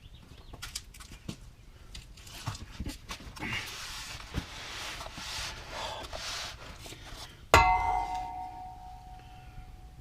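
Small clicks and handling noise of tools and parts, then, most of the way through, a single sharp metallic clang that rings on and fades over about two seconds.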